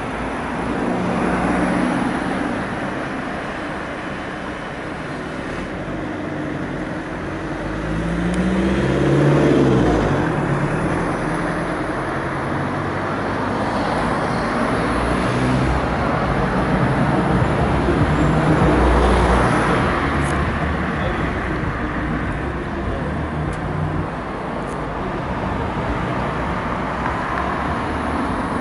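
Street traffic: cars passing on the road, the sound swelling and fading several times, loudest about nine to ten seconds in.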